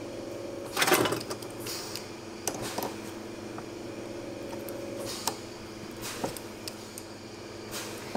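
Small clicks and scrapes of jeweller's pliers working gold wire, the loudest about a second in and a few smaller ones after, over a steady background hum.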